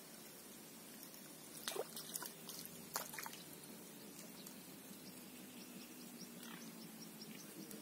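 Quiet outdoor ambience at a reedy lake: a faint steady hum, with a few short sharp clicks and drips about two and three seconds in.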